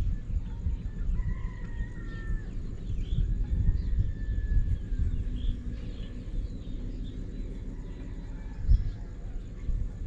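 Outdoor ambience: wind gusting on the microphone with a low rumble, and faint bird calls drifting in and out. There is a single low thump near the end.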